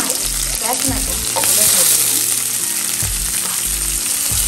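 Whole small onions, curry leaves and cashew nuts sautéing in hot oil in a frying pan, with a steady sizzle.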